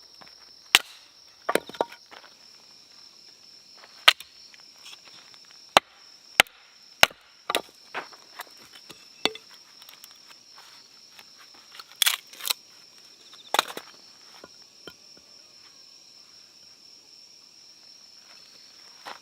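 Firewood being chopped or split: sharp, irregular knocks of a blade on wood, a dozen or so strikes spread over the first two thirds. Insects chirr steadily at a high pitch throughout.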